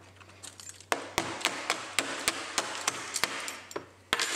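Metal keys scraped and jabbed hard across a phone's plastic screen protector: a rough scratching with sharp clicks about three or four times a second, starting about a second in and dying away shortly before one last sharp tap near the end.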